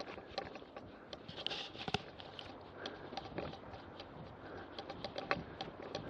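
Mountain bike rattling over a bumpy dirt and grass track: many small, irregular clicks and knocks over a low rumble of the tyres, picked up by a handlebar-mounted action camera.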